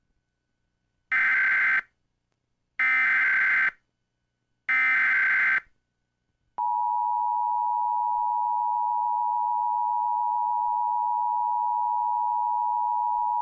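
Emergency Alert System tones: three identical electronic data bursts of the SAME header, each about a second long, encode the alert. About a second after the third, the steady two-tone attention signal starts and holds, marking that an emergency message follows.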